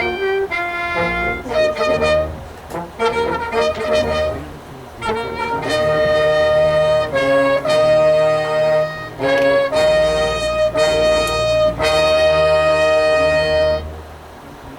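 High school marching band playing, brass to the fore, with low brass and drums underneath: a run of short accented chords, then long held chords, the last one cutting off about a second before the end. These are the closing bars of the field show.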